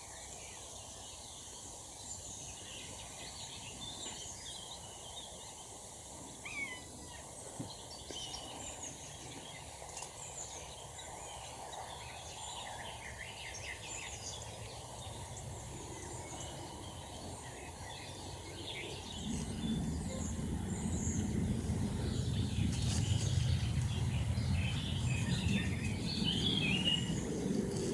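Assorted birds chirping and calling in short high notes over a steady outdoor background. About two-thirds of the way in, a louder low rumble sets in beneath the birdsong.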